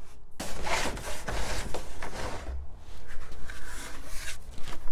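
Screw-on plastic lid of a rain barrel being twisted and lifted off, hard plastic rubbing and scraping against plastic for about four seconds.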